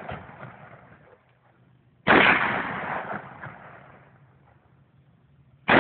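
AR-15 rifle shots: one sharp shot about two seconds in that rings out and fades over about two seconds, and another right at the end, with the echo of an earlier shot dying away at the start.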